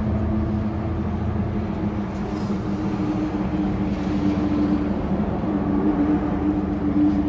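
A 2020 Kia Cerato's four-cylinder engine running steadily, with cylinder 2 misfiring because its fuel injector circuit is open.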